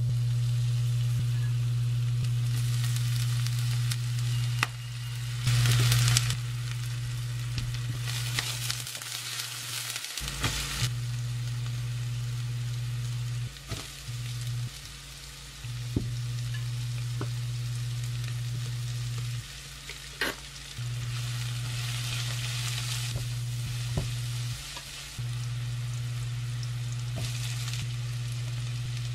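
Garlic, green onion and julienned vegetables sizzling in oil in a frying pan, the sizzle surging several times as ingredients go in, with a few sharp taps of a utensil on the pan. Under it a steady low hum from the induction cooktop cuts out and back in several times.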